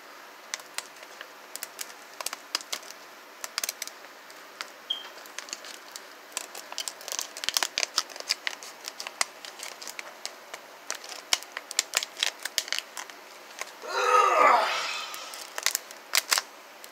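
Plastic blister packaging being worked open by hand: a run of sharp crinkles and crackles, with one louder ripping sound lasting about a second near the end.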